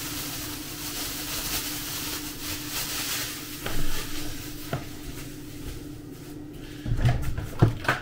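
Thin plastic bag rustling and crinkling as grated cheese is shaken out of it, with a few light knocks after a few seconds, over a steady low hum.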